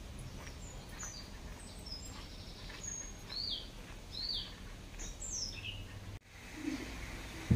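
Small birds chirping: a handful of short, high, down-slurred calls over a low steady background rumble. The sound drops out briefly near the end.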